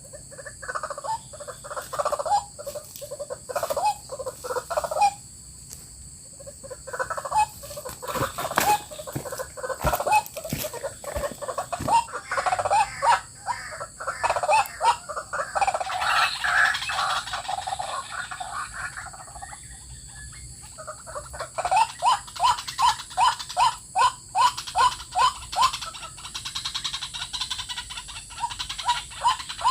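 White-breasted waterhen calling: bouts of short repeated notes with brief pauses between them, settling into a steady run of about two or three notes a second near the end.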